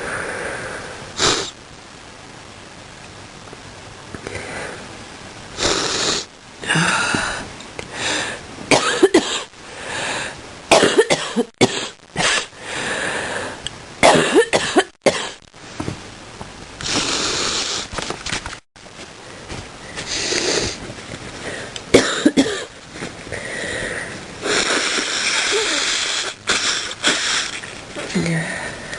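A person coughing over and over in fits, many coughs in clusters with short breaks between. A few longer, drawn-out noisy sounds come in among them.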